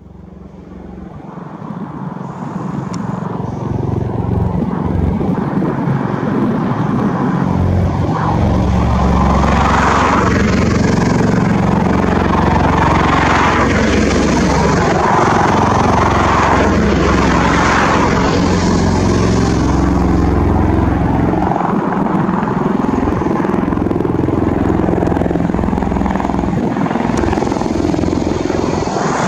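Bell Boeing V-22 Osprey tiltrotor running on its twin Rolls-Royce T406 turboshaft engines: a steady low drone with a pulsing rotor beat. It grows louder over the first several seconds, then holds steady.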